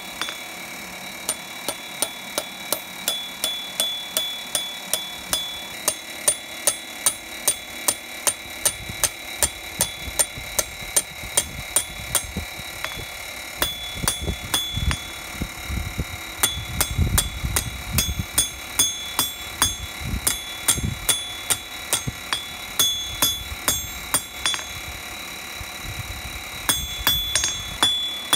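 Hand hammer striking a hot steel bar on an anvil to curl its end into a scroll, at a steady pace of about three blows a second. Each blow rings the anvil with a bright metallic tone. The hammering pauses briefly twice, near the middle and shortly before the end.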